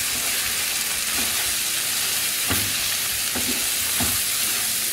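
Round rice and sofrito sizzling in olive oil in a paella pan while the rice is toasted to seal it. A slotted spatula stirs through it, scraping and knocking against the pan a few times in the second half.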